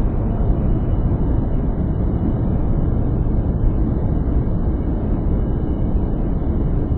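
Steady, loud low rumbling noise without any tone or rhythm, swelling in at the start and easing off near the end.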